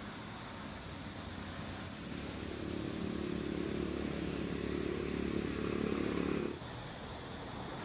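An engine running steadily over a constant background hiss, getting louder about two seconds in and cutting off abruptly near the end.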